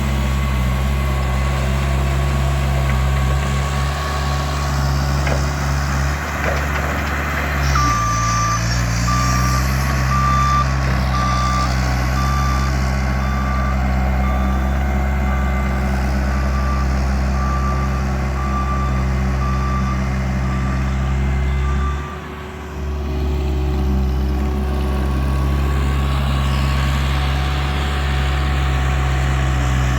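Bobcat machine's diesel engine running steadily at work, its pitch shifting about a quarter of the way in. From then a reversing alarm beeps about once a second for some thirteen seconds, and the engine briefly drops off about two-thirds through.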